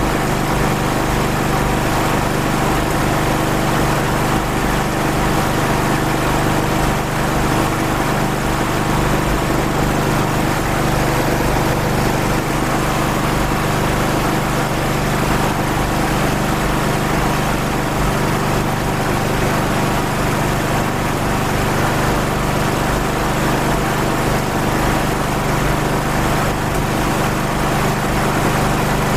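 Carburetted engine running steadily at a constant speed, with its petrol supply shut off so that it runs on a water-based fuel system, as its makers claim.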